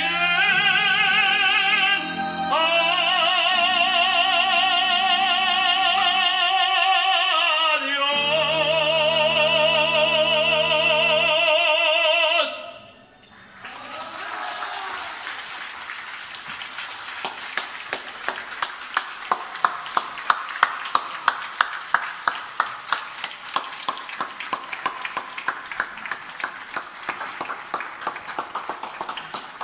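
A man singing the closing long held notes of a Spanish love song with wide vibrato over sustained backing chords, the last note ending about twelve seconds in. After a short gap, a fast, dense clatter of sharp clicks follows, with louder ones about twice a second.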